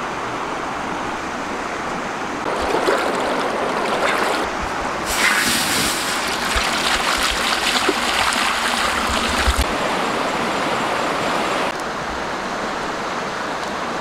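Water pouring and splashing into a large metal wok, a loud hissing rush from about five seconds in until nearly ten seconds. A river's steady flow runs underneath throughout.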